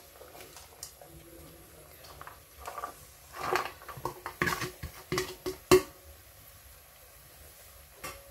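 Chopped vegetables tipped from a metal plate into a pressure cooker: about three seconds in, a short rush of pieces sliding and dropping into the pot, followed by a run of clinks and knocks of the plate against the cooker, the sharpest one a little before the end of the activity.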